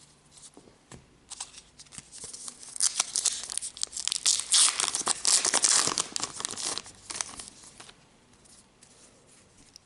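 A 2018 Topps Gypsy Queen trading-card pack being torn open, its wrapper crinkling: a crackly rustle that builds about a second in, is loudest in the middle and dies away a couple of seconds before the end.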